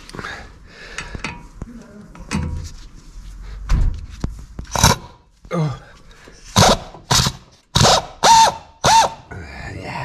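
Power drill driving on a seized, rusty brake disc retaining screw in several short trigger bursts in the second half, each rising and falling in pitch, with a few duller knocks before them.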